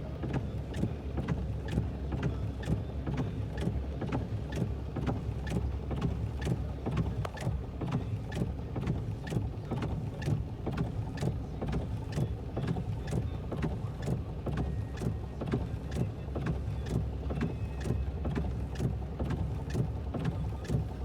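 Raindrops tapping irregularly, two or three sharp ticks a second, on a vehicle's roof and windshield, heard from inside over a steady low rumble from the vehicle.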